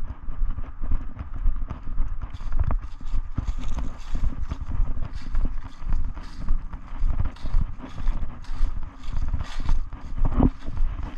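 Footsteps walking on the ground, a steady run of close thuds about two a second.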